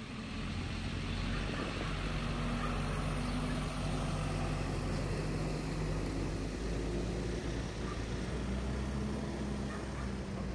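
Fire truck's diesel engine running steadily as the truck drives slowly past, followed by a rescue ute passing.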